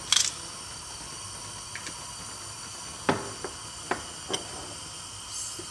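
A few light knocks and clicks over a steady background hiss: one sharp click right at the start, then four soft knocks between about three and four and a half seconds in.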